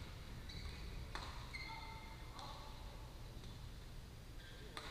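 Badminton play echoing in a large sports hall: sharp racket-on-shuttlecock hits about a second in and again near the end, and short high squeaks of shoes on the court mats, over a steady low rumble of the hall.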